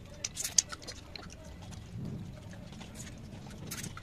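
A person chewing food by mouth with wet lip smacks. A few sharp smacks stand out, the loudest about half a second in and another near the end.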